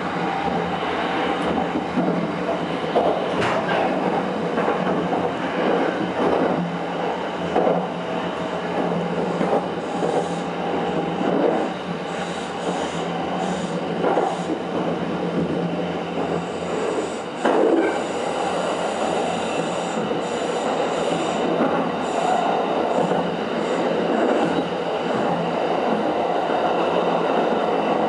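Running noise of a Kintetsu Ise-Shima Liner electric express train heard from inside, just behind the driver's cab: a steady rumble of wheels on rail, broken by irregular knocks from the track, the loudest about 17 seconds in.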